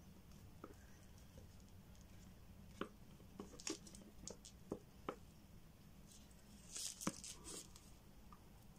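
Faint, scattered light clicks and crinkles from gloved hands holding a clear plastic mixing jug upside down over a paper cup, with a short rustle about seven seconds in.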